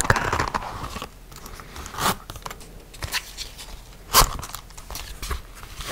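Leather zip pouch handled close to the microphone: several separate sharp clicks and crinkles from its metal zipper and leather, the loudest about four seconds in.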